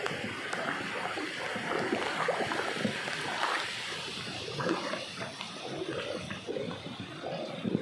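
River water splashing and rushing around a small paddled wooden boat, with irregular splashes and a louder hit near the end.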